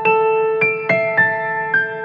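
Background music: a piano-like keyboard playing a gentle melody of single notes, struck about every third to half a second over a held lower note.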